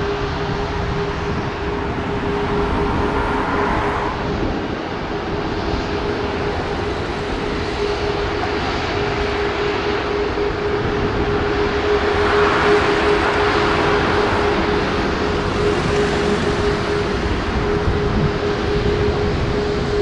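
Lufthansa Airbus A340-600's four Rolls-Royce Trent 500 jet engines running, a steady rumble and hiss with a constant hum underneath, swelling a little about twelve seconds in.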